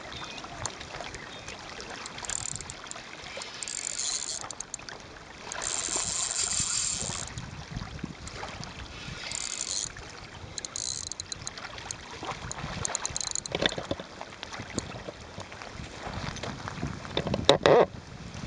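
Small waves lapping on a pebbly lakeshore in a series of short hissing washes. Near the end, a sharp, loud splash as a mirror carp thrashes in the shallows.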